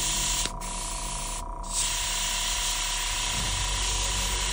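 Airbrush hissing as it sprays acrylic paint. The air cuts off briefly twice in the first two seconds, then runs on steadily.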